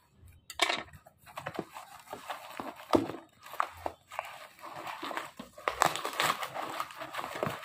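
Cardboard shipping box being opened by hand, with crumpled kraft paper packing pulled out: irregular crinkling and crackling with sharp clicks of paper and cardboard.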